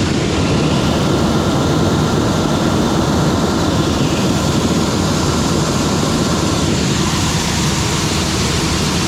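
Large farm machinery running steadily: a loud, even roar with a faint high hum, easing off a little near the end.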